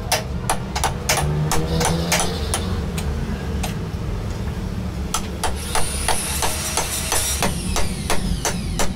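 Hammer blows, sharp and irregular, about two or three a second, over a steady low hum. A high scraping hiss joins in for about the last three seconds.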